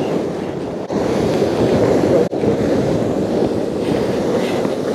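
Heavy surf churning and washing against a rocky shoreline, with wind buffeting the microphone. The noise drops out for an instant twice.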